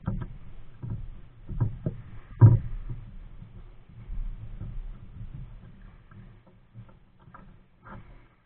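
Nelo Viper 55 kayak being paddled: irregular splashes and knocks from the paddle strokes over a low rumble, the loudest stroke about two and a half seconds in.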